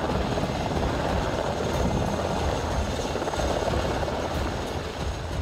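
Black Hawk helicopters running close by: a steady rotor and turbine noise as one lifts into a low hover.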